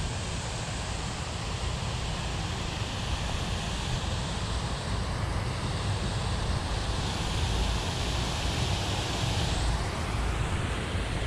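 Strong wind buffeting the microphone, with the high-pitched hiss of an electric RC racing catamaran at speed on the water, building in the middle and cutting off suddenly about ten seconds in.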